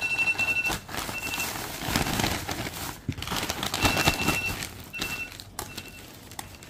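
Plastic shopping bags handled and crinkled by hand while items are taken out: continuous rustling and crackling of thin plastic. A faint high tone comes and goes several times.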